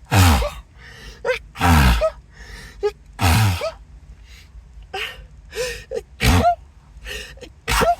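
A person in a sneezing fit: about five loud sneezes in a row, with short gasping breaths between them.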